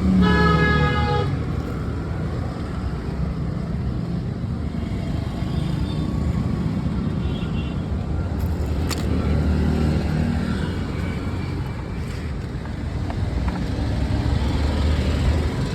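A vehicle horn sounds, stopping about a second in, over a steady low rumble of road traffic and engines. There is a single sharp click about nine seconds in.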